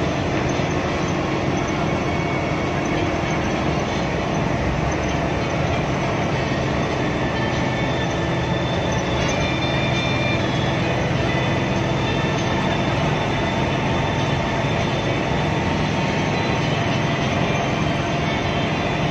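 Cabin sound of a Hino AK8 intercity bus driving in heavy rain: a steady engine drone under a constant hiss of rain and wet tyres on the road.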